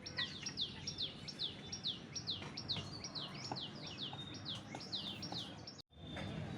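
A bird calling: a quick run of high chirps, each sliding down in pitch, about two or three a second. The sound drops out for an instant near the end.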